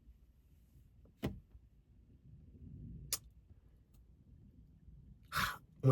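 Quiet room tone, with a soft thump about a second in and a sharp click about three seconds in. A short breath comes near the end, just before the speaker talks again.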